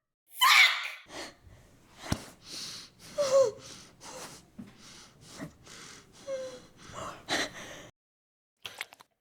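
A person breathing hard in a series of short gasps and snorting breaths, with a few brief voiced squeaks, stopping about eight seconds in.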